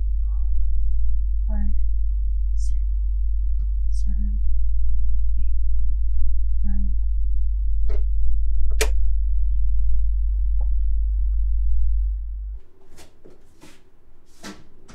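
A deep, steady drone of horror-film sound design, with faint scattered ticks and two sharp clicks about eight and nine seconds in. About twelve seconds in the drone cuts off suddenly and a run of creaks and knocks begins.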